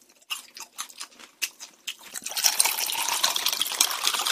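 Grape drink with grape pulp poured from a can into a glass of ice: a steady splashing pour that starts about two seconds in, after a few light clicks and taps.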